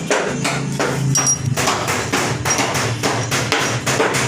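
Repeated hammer blows, about three strikes a second, over a low steady hum.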